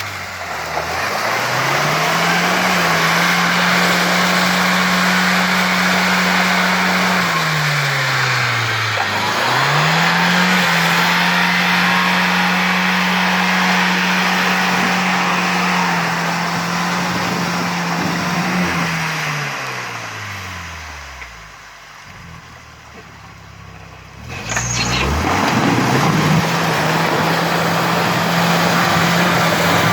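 Off-road vehicle engine revved hard in long sustained pulls, the revs falling away between them. It drops almost to nothing about 21 seconds in and picks up again about 25 seconds in.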